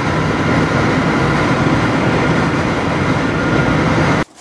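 Steady road and engine noise inside a vehicle's cabin at highway speed, a loud even rumble that stops abruptly just before the end.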